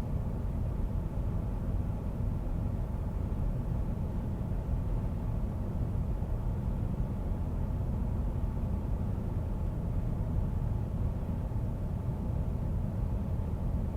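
Steady road noise inside a moving car's cabin: a low rumble from the tyres and engine with a lighter wind hiss, picked up with the microphone's noise reduction switched off.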